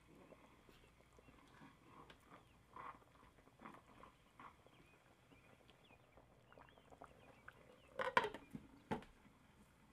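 Soft squelching and scraping of a silicone spatula stirring thick meat stew in a stainless steel pan, with faint simmering. About eight seconds in comes a brief clatter of a glass lid being set onto the pan, with one more clink about a second later.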